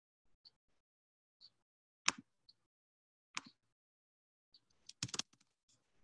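Faint, scattered clicks and taps from fingers working a computer: a few single sharp clicks spaced a second or so apart, then a quick run of clicks near the end.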